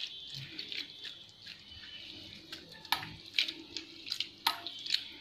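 Grated potato being washed by hand in a steel plate of water: quiet sloshing and dripping, with a few sharper splashes from about three seconds in.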